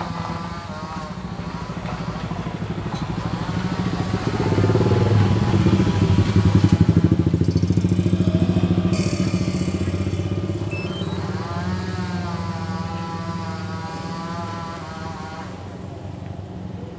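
Engine of a rail-laying machine running as it moves along the track pulling rails. It grows louder to a peak about six to seven seconds in, then fades, with a short hiss about nine seconds in.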